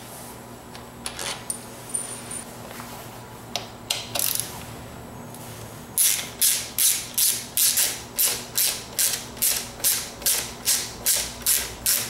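Ratchet with a T30 Torx bit clicking in steady strokes, about two or three a second, backing out a screw on the motorcycle's fuel tank rear clamp; the ratcheting starts about six seconds in, after a few scattered clicks of the tool being fitted.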